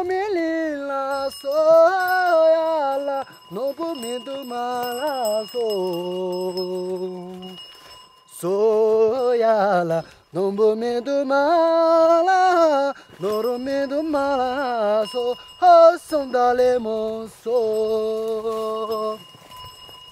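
A solo voice singing a slow, ornamented melody with long held notes, in several phrases with short breaks between them, stopping about a second before the end.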